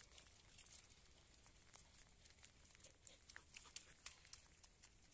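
Near silence: faint outdoor ambience with scattered soft, irregular ticks.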